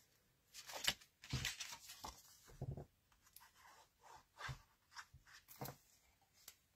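Cardstock and patterned paper being handled: faint, irregular rustles and scrapes with a few soft taps as card panels are pressed down, lifted and laid on the mat.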